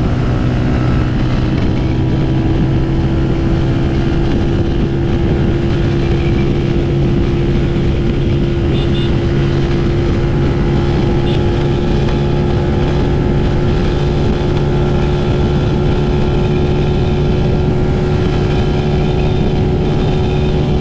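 TVS Apache RTR 200 4V's single-cylinder engine running at a steady high rpm at highway cruising speed, its note holding pitch throughout, over steady wind and road noise.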